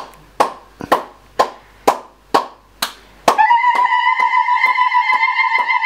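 Background music: a sharp knock-like beat about twice a second, joined about three seconds in by a loud, held, slightly wavering high tone that keeps the beat's pulse.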